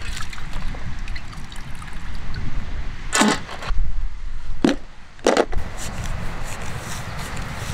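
Water trickling and splashing as crabs are washed for cooking, with three short, louder sounds a little past the middle.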